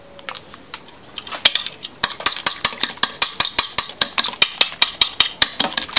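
A metal fork whisking egg wash on a ceramic plate, the tines clicking rapidly against the plate at about five strokes a second, starting about two seconds in after a few scattered taps.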